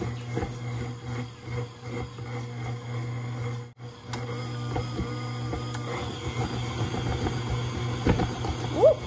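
Electric stand mixer running steadily with a flat beater, its motor giving a constant hum as it cuts cold butter chunks into flour for pie dough.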